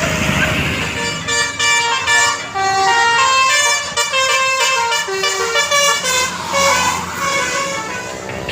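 A bus's multi-tone 'telolet' basuri air horn playing a quick tune of short stepped notes. It starts about a second in and trails off near the end, over traffic noise.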